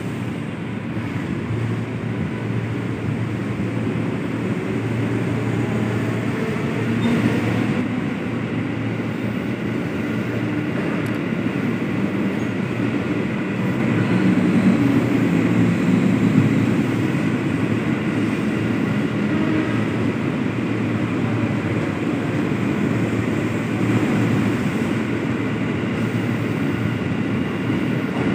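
Electric commuter train (KRL Commuter Line EMU) at a station platform: a steady low rumble and hum with a faint high tone, swelling a little about halfway through.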